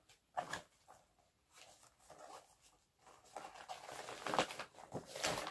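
Fabric bikepacking handlebar bag and its strap harness being handled and unfolded: a light tick about half a second in, then irregular rustling of fabric and straps from about three seconds in, with a few sharper crinkles.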